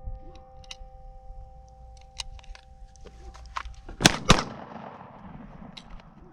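Glock pistol fired twice in quick succession, a double tap with the shots about a quarter second apart, about four seconds in.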